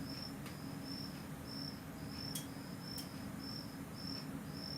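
A cricket chirping steadily, short high-pitched chirps about twice a second, over a low steady hum, with a few faint sharp clicks.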